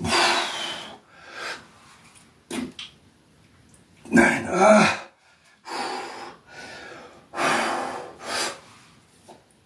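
A man breathing hard under the strain of a set of resistance-band shoulder presses: forceful exhalations come every second or few, and the loudest, about four seconds in, is a voiced, grunting breath.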